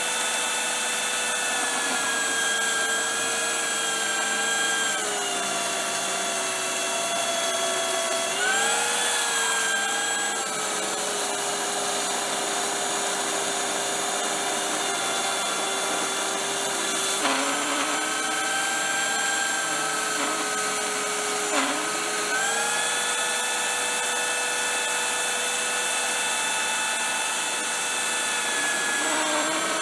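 Black+Decker belt sander running with a steady motor whine while a steel knife blade is ground on its belt. The pitch sags as the blade is pressed on and rises again when the pressure comes off, several times over.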